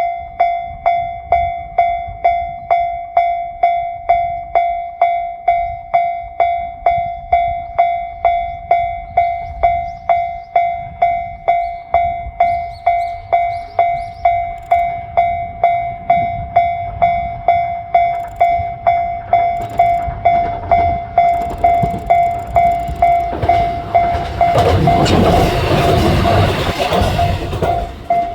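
Level crossing warning bell dinging steadily at about two strokes a second while a two-car KiHa 200 diesel railcar approaches. About 24 seconds in, the train passes close in a loud rush of wheel and engine noise that fades just before the end, with the bell still ringing.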